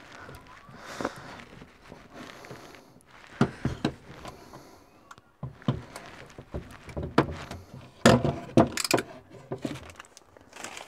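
Scattered knocks, clicks and rustles of tools and tiling materials being handled and set down, with the loudest cluster of knocks about eight seconds in.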